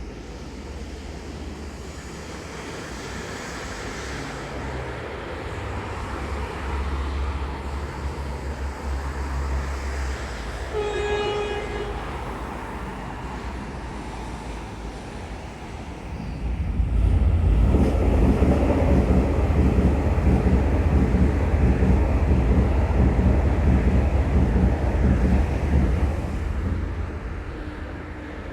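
A train sounds a short horn blast, then about five seconds later rumbles loudly past for around ten seconds before fading away.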